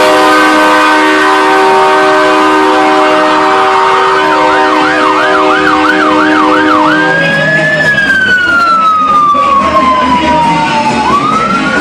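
Truck air horns held in one long, steady, loud blast, with a siren yelping rapidly over them for the last few seconds of it. About seven seconds in, the horns stop and the siren changes to a slow wail, its pitch falling steadily and then rising again near the end.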